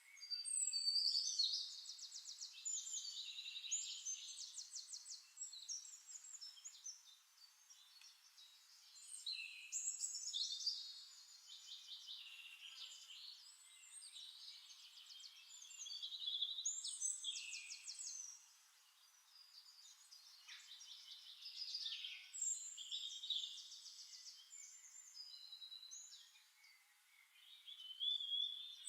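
Songbirds singing: overlapping chirps and fast trills, swelling into louder phrases every few seconds.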